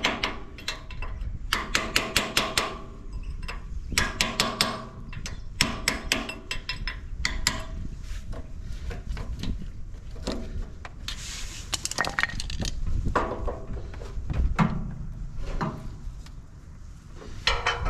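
Hammer driving a punch against the PTO shaft cap and housing of a Ferguson TEF20 tractor, in quick runs of sharp metal knocks, to loosen the cap over a failed PTO seal.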